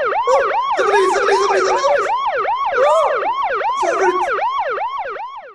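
Cartoon police siren sound effect: a fast, repeating wail rising and falling about four times a second, cutting off suddenly at the end.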